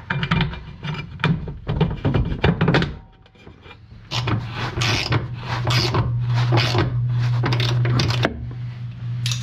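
Knocks, clunks and rattles of hands handling metal fittings against the wooden platform and aluminium frame in a Jeep Cherokee XJ's cargo bay. There is a short lull about three seconds in. After that the knocking goes on over a low steady hum.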